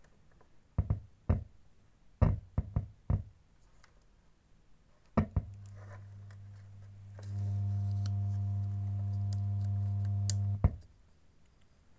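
Clicks and pops through the subwoofer of a homemade TIP35/TIP36 transistor amplifier as a bare input plug and clip are handled. From about halfway through comes a low buzzing hum with several overtones, typical of an amplifier's open or touched input picking up mains hum. It grows louder after a couple of seconds and stops with a click near the end.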